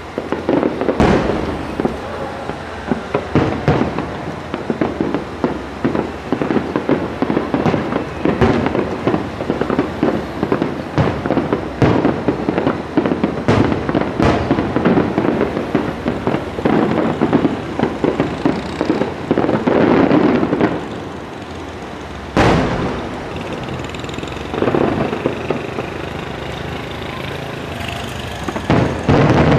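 Fireworks display: a rapid barrage of aerial shell bursts, many sharp bangs close together, then a short lull, a single loud bang and scattered further bursts.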